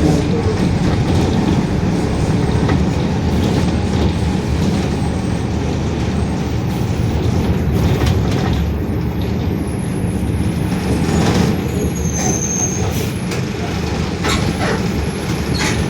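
Mercedes-Benz OF-1721 city bus in motion, a dense low drivetrain and road rumble heard from inside, which the recordist puts down to a growling differential. Near the end come a few short hisses and clicks from the air-brake system.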